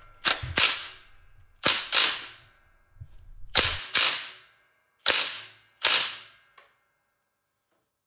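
Makita cordless impact wrench fired in about eight short bursts, roughly in pairs, hammering on a lawn tractor's oil drain bolt that is too tight and does not come loose.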